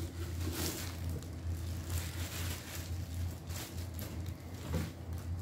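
Clear plastic wrapping rustling and crinkling in irregular bursts as a wax warmer is pulled out of its bag, over a steady low hum.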